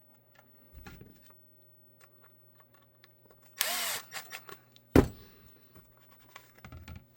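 Workbench tool handling: a half-second burst of a power tool running about three and a half seconds in, then one sharp knock, with light clicks and thumps around it.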